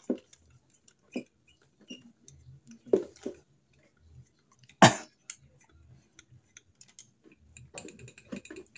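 Scattered small metallic clicks and taps of hands and tools working at the through-bolts of a Suzuki Satria FU 150 cylinder head, with one sharper knock about five seconds in.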